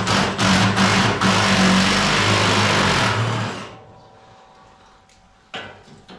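A power tool's motor, such as a cordless drill or impact driver removing a fastener. It runs in a few short bursts, then steadily, and stops about three and a half seconds in.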